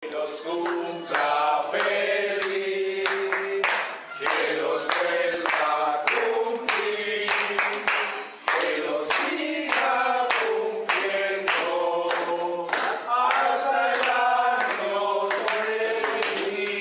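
A group of voices singing a song together, with hand clapping in time about twice a second.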